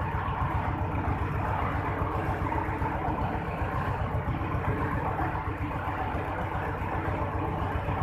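Engine of a tow-behind drum concrete mixer running steadily, with a fast, even low throb.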